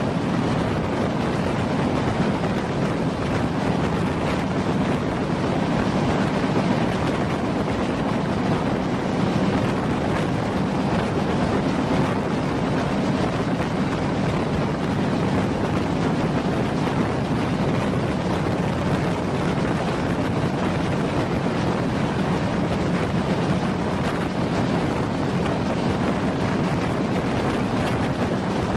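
Steady rumble and rushing of a moving passenger train on the rails, with wind buffeting the microphone.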